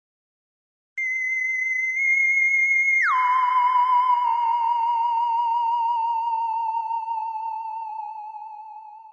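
Electronic sound effect: a pure, whistle-like tone that holds high, drops suddenly to about half its pitch, then wavers with a quick vibrato as it sinks slowly and fades out.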